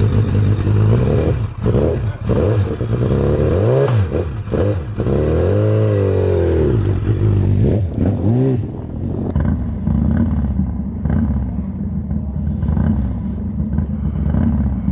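A racing motorcycle engine revved in about four throttle blips, each rising and falling in pitch, then settling into a steady idle.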